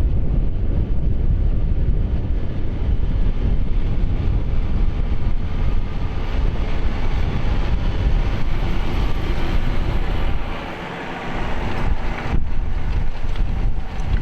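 Tractor engine running in a field, half buried under heavy wind buffeting the microphone. The wind rumble eases briefly about eleven seconds in.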